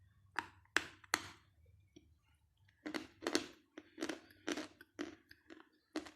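Chewing a piece of soft Khrapovsky edible chalk close up: three crisp crunches in the first second or so, then a quicker run of crunching chews from about three seconds in.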